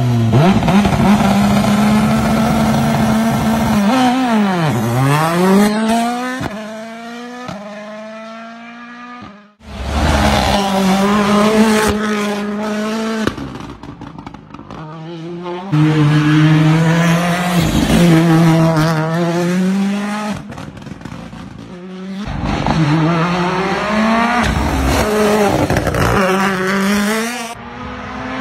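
Ford Puma Rally1 rally car's 1.6-litre turbocharged four-cylinder engine, driven hard on a tarmac road: revs rise and fall through gearchanges over several passes. Its pitch drops sharply as it goes by about four seconds in.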